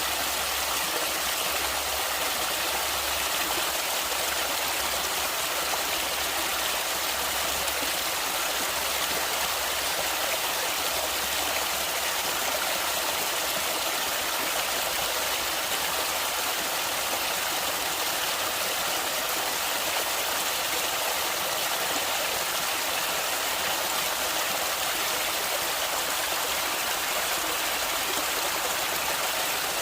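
Natural flowing water running steadily: a continuous, even rushing hiss with no breaks.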